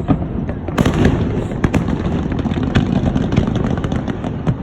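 Aerial fireworks going off: a loud bang about a second in, then a scatter of sharp cracks and pops over a steady low rumble.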